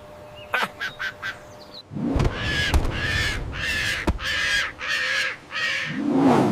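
Seagull calls: a few short chirps, then a run of about six harsh, evenly repeated cries, and a lower squawk near the end.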